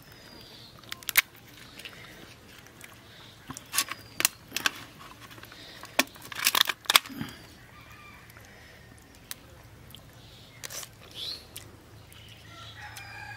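Cooked river crab shell cracking and crunching as it is broken apart by hand and bitten: a series of sharp cracks, thickest about six to seven seconds in.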